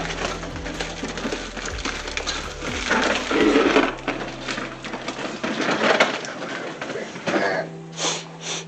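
Irregular rustling, knocking and scraping from a handheld phone being moved about, over a steady low hum; it thins out near the end.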